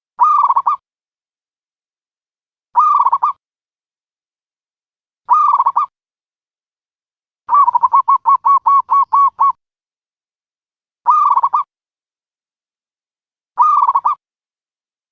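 Dove calls used as a trapping lure: five short coos about two and a half seconds apart, with a longer run of about ten quick, evenly spaced notes in the middle, and dead silence between calls.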